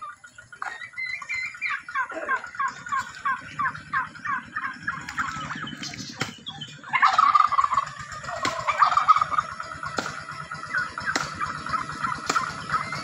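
Domestic turkeys calling: a run of quick, repeated calls, then from about seven seconds in a louder, denser stretch of gobbling. A few sharp clicks come through over a low background rumble.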